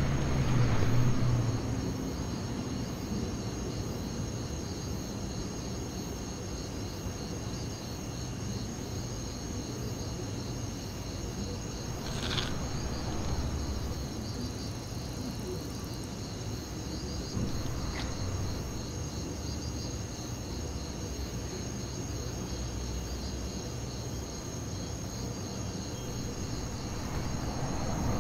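Crickets chirping steadily in an even, pulsing pattern over a low background rumble.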